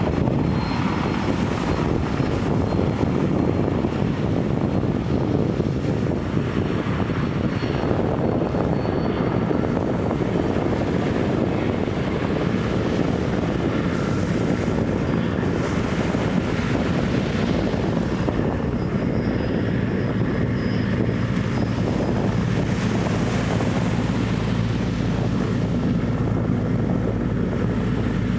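Sikorsky S-64 Air-Crane helicopter's rotors and twin turbine engines running steadily as it flies low, coming in to draw water through its hanging snorkel.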